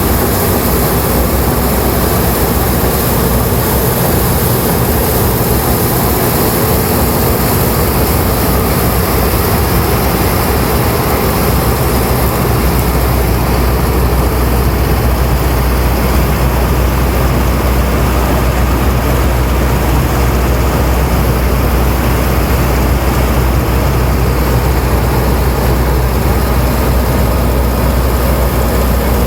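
Fortschritt E514 combine harvester running steadily at work, a loud, continuous engine and machinery drone; its low hum grows stronger about twelve seconds in.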